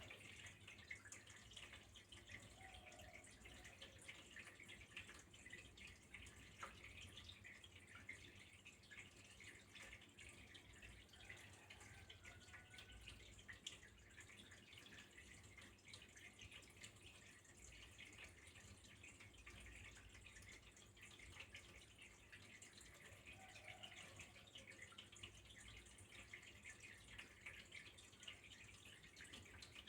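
Faint, steady trickle of flowing water, a dense patter of small drips.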